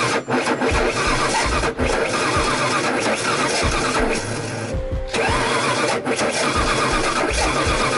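Carbureted Ford Mustang engine cranking over on its starter, worked from a push-button starter switch, with a short break a little before the middle before the cranking resumes.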